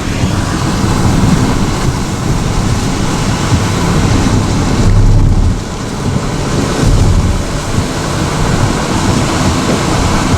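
Strong gusty wind buffeting the microphone near a large tornado: a loud, rushing, rumbling noise that swells in gusts about five and seven seconds in.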